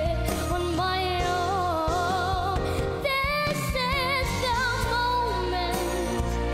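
A boy singing a ballad into a handheld microphone, holding long notes with strong vibrato, over a recorded band backing track.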